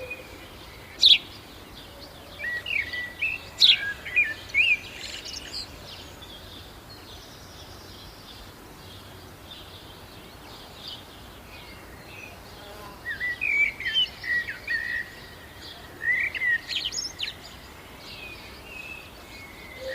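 Birds chirping and calling in short, quick notes, busy for the first few seconds, then a lull of several seconds before another spell of chirps.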